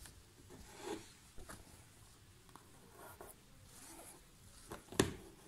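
Needle and embroidery thread being drawn through fabric stretched taut in an embroidery hoop while filling stitches are worked: faint, scratchy strokes every second or so, with one sharp click near the end.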